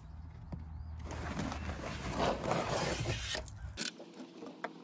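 A car floor mat dragged out of the footwell over the carpet and door sill: a scraping rustle starting about a second in and lasting a couple of seconds, over a low rumble, followed by a few light knocks near the end.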